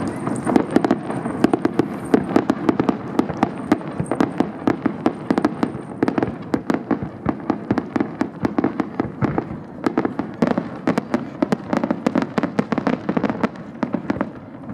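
Fireworks display: a dense, unbroken run of sharp bangs, several a second, throughout.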